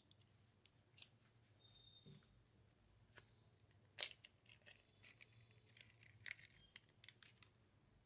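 Small clear plastic parts bag being handled and opened with faint crinkles and a scattering of sharp clicks, the loudest about a second in and about four seconds in, as a tiny mounting screw is taken out.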